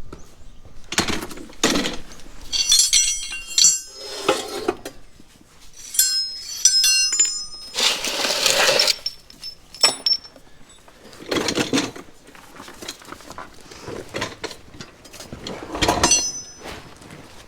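Metal hand tools clinking and rattling against each other in short clusters, with bursts of scraping and shuffling in between.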